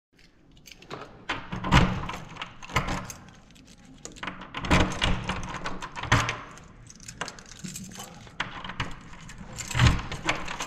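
A bunch of keys on a lanyard jangling and clicking against a door's lock and handle, with several sharp metallic clacks.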